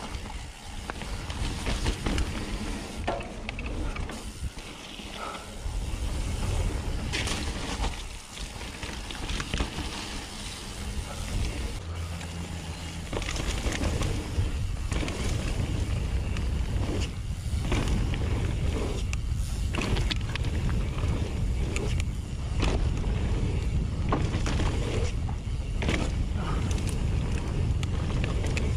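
Nukeproof Mega 290 mountain bike descending a rough trail: tyres rumbling over dirt and rocks with frequent clattering knocks from the bike, and wind buffeting the action-camera microphone. Louder and rougher from about halfway through.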